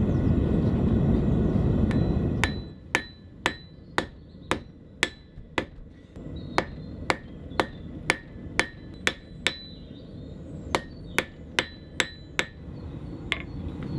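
Gas forge burner running with a loud, steady rumble, which cuts off after about two and a half seconds. Then a Daniel Moss rounding hammer strikes hot mild steel on an anvil, about two ringing blows a second, in three runs with short pauses.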